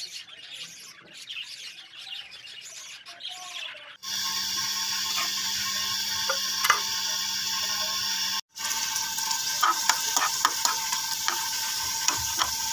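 Faint birds chirping for the first few seconds. Then hot oil sizzles steadily as whole green chillies coated in masala fry in a wok. In the last few seconds the sizzling turns crackly, with many sharp pops.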